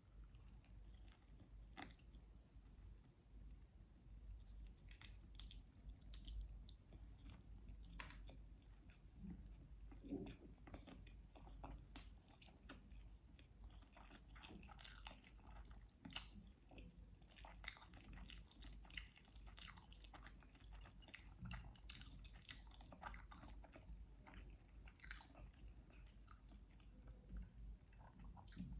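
Soft, close-miked chewing and biting of sushi: many small, irregular wet mouth clicks.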